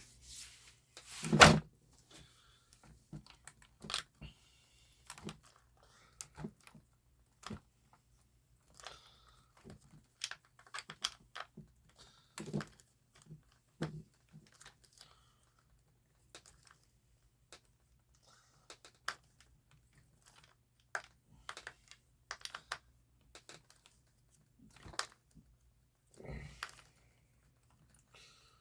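Scattered small clicks, taps and knocks of an RC truck and its parts being handled and worked on at a bench, with one louder thunk about a second and a half in, over a faint steady hum.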